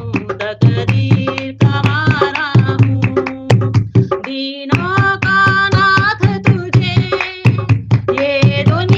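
A woman singing a Hindi devotional bhajan with a wavering, ornamented melody over a dholak beating a steady rhythm. The drum's deep strokes drop out briefly about halfway through.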